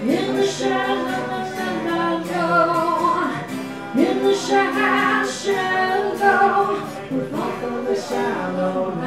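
Live acoustic guitar playing under a woman's singing voice, the notes held long and swooping up into new phrases at the start and about four seconds in.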